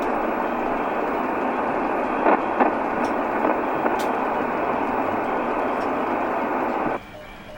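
Steady radio static hiss on a two-way communications channel, with a couple of brief clicks a little over two seconds in; the hiss cuts off suddenly about seven seconds in.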